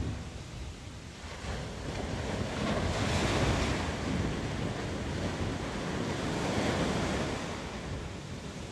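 Ocean waves washing onto a beach, swelling twice and then fading out near the end, with some wind on the microphone.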